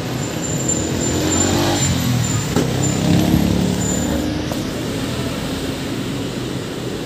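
Road traffic: a motor vehicle's engine rumbling past, loudest about three seconds in, over a steady low traffic rumble.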